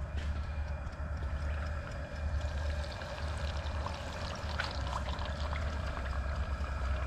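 Breaded crappie frying in hot peanut oil at about 350 degrees, a steady sizzle with many small crackles and pops, over the low steady rumble of the fryer's gas burner.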